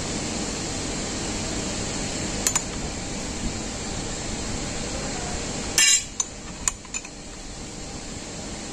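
Metal tools clinking against a brush cutter's line-trimmer head as its nut is tightened with a wrench and locking rod: one click early, a brief loud metallic clatter about six seconds in, then a few lighter clicks, over a steady background hum.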